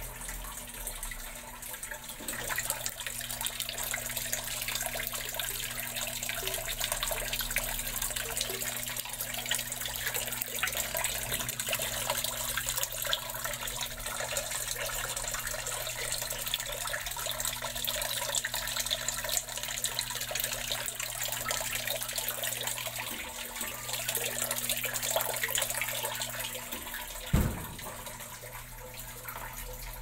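Water running into an American Home top-load washer through its repaired inlet valve, a steady hiss with a low hum underneath. There is a single sharp knock near the end.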